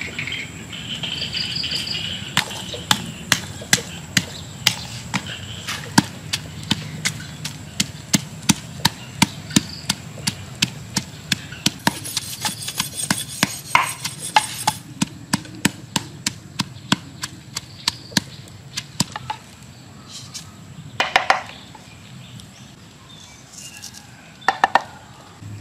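A wooden pestle pounding red chillies and garlic in a wooden mortar: steady, evenly spaced knocks at about two a second, stopping about three-quarters of the way in.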